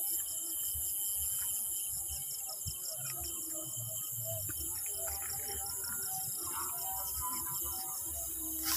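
Crickets chirring steadily at night in a fast, even pulse, over a constant high-pitched insect hiss.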